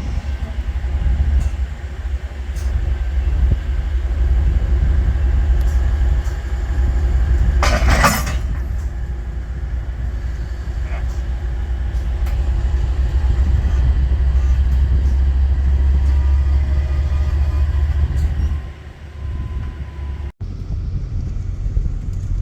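Steady low rumble of a car's cabin while it creeps forward in a queue, with a brief hissing burst about eight seconds in; the rumble eases off near the end.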